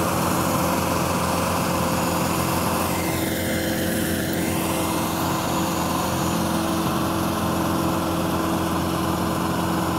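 Tracked stump grinder's engine running steadily with a hum, as the machine drives past on its rubber tracks with its cutter wheel spinning free of the ground. About three seconds in, the tone sweeps and shifts as it passes closest.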